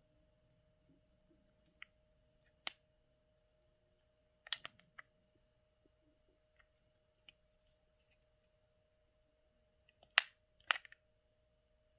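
Scattered sharp clicks and taps from small items being handled, with a cluster about halfway through and two louder clicks near the end, over a faint steady hum.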